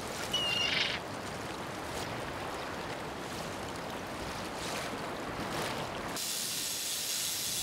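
Steady rushing of sea surf and wind, with a short high tone about half a second in. About six seconds in it gives way to a thinner, higher hiss.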